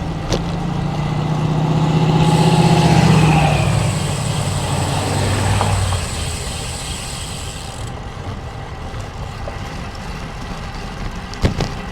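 Antique car's engine driving past, loudest about three seconds in, its pitch dropping as it moves away. After that, steady wind and riding noise.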